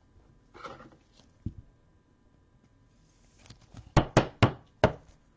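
Four quick, sharp knocks on a hard surface near the end, preceded by a single soft thud and a brief rustle.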